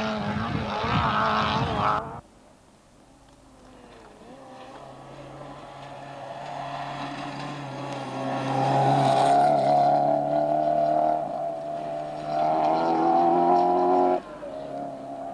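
Volkswagen Golf Mk2 rally car's engine running hard at high revs on a gravel stage: heard faint at first, it grows steadily louder over several seconds to a loud, steady note, dips briefly, then rises again before cutting off suddenly near the end. The first two seconds hold another loud engine with road noise, which ends abruptly at an edit.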